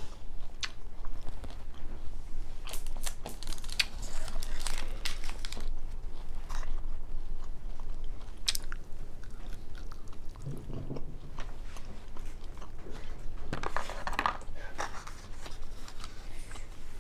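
A person chewing and biting Japanese takeout food, including edamame, with irregular short clicks and crunches.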